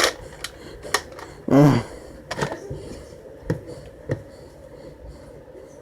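Scattered sharp clicks and knocks in a small room, about half a dozen spread over several seconds, with a brief voiced exclamation about a second and a half in.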